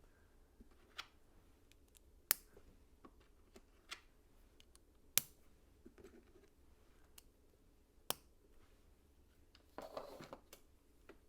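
LEGO pieces being handled and clicked into place: several sharp snaps a second or more apart, with a brief rustle of handling near the end.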